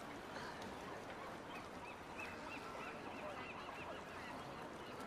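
Faint outdoor waterside ambience, a steady wash of noise. In the middle, a bird calls a quick run of short, repeated high notes, about four a second, for a couple of seconds.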